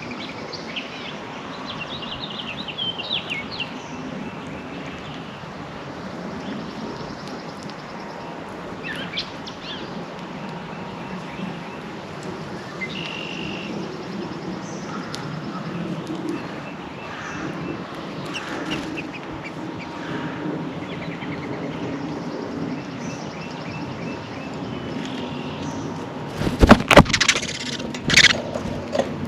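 Backyard songbirds chirping and calling in short scattered notes over a steady low background rumble. Near the end comes a quick cluster of loud, sharp knocks.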